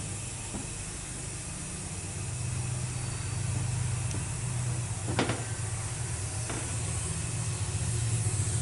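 Steady hiss with a low hum underneath, and a few light clicks as the metal plate and valve body of an automatic transmission are handled, the sharpest about five seconds in.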